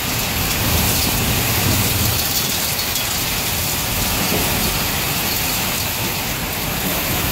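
Heavy storm rain pouring down in a steady, unbroken roar, with a low rumble underneath.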